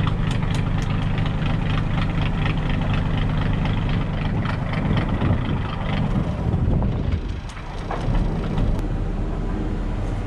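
Lifeboat's diesel engine idling, a steady low drone with a fast, even clatter over it, on a test run just after its oil change. The level dips briefly about seven seconds in.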